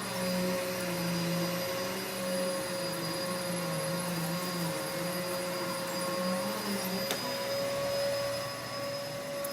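Vacuum cleaner running steadily, with a constant whine over the suction noise and a lower hum that wavers in pitch and drops away about seven seconds in.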